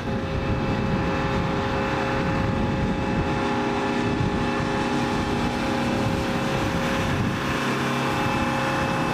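Steady drone of a running aircraft turbine, a rough low rumble under several steady whining tones.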